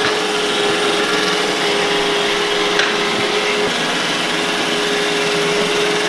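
iRobot Roomba j7 robot vacuum running across a tiled floor: a steady motor and fan whir with a constant mid-pitched hum.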